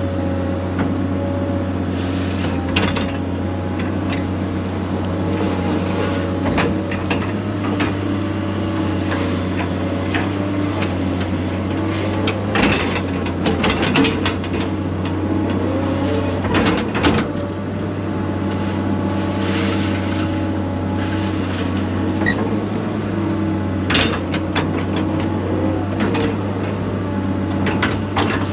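Excavator's diesel engine running steadily, with scattered knocks and clatters as the machine works through brush and stumps.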